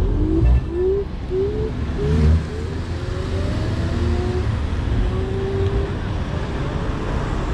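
Road traffic heard from a moving electric scooter: a steady low rumble of cars and road noise, with two louder low thumps in the first few seconds. A short rising whine repeats several times in quick succession early on, and longer, slowly rising whines follow later.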